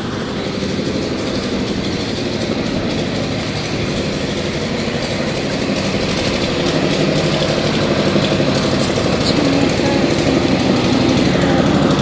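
Diesel engine of a water tanker truck running steadily, slowly growing louder.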